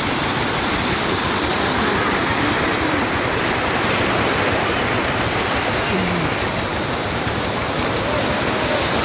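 Flash floodwater rushing down a wadi channel: a loud, steady rush of muddy, fast-flowing water.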